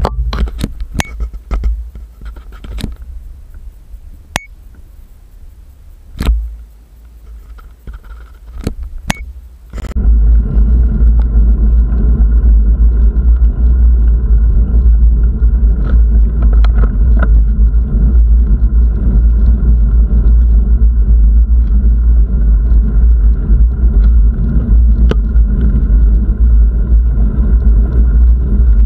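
Wind buffeting the microphone of a moving camera, a loud steady low rumble that starts suddenly about ten seconds in; before that, a quieter rumble with scattered sharp clicks and knocks.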